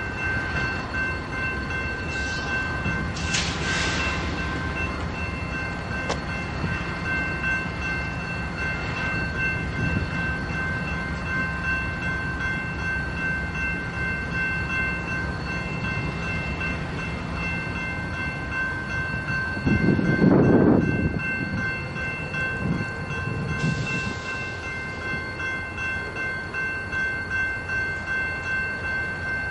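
Railroad grade-crossing warning bell ringing steadily, with a short hiss a few seconds in and a brief louder rumble about two-thirds of the way through.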